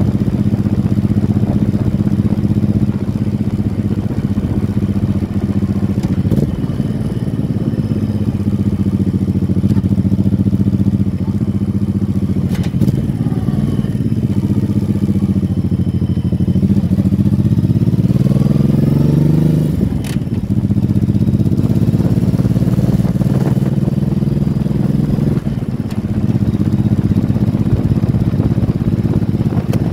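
Motorcycle engine running steadily under way. A little past the middle its pitch climbs for about three seconds, then drops sharply, as at a gear change, and settles again.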